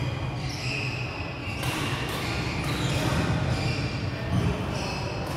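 Sports shoes squeaking in short bursts on a wooden badminton court floor, many times over, against the steady hum and murmur of a large hall.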